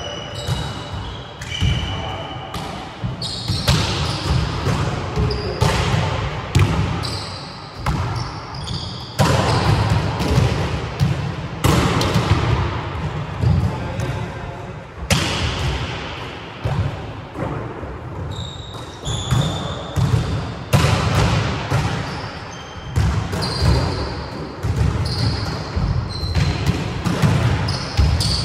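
Volleyballs being struck and bouncing on a wooden gym floor: a steady run of sharp smacks and thuds echoing around the hall, with short high sneaker squeaks in between.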